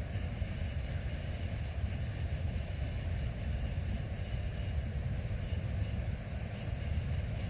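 Steady wind rumble buffeting the microphone, with the static of a Necrophonic ghost-box phone app, run with echo, reverb and white noise, playing faintly underneath.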